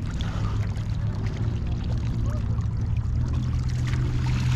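Lake water splashing and sloshing as a swimmer moves through it and stands up, over a steady low drone.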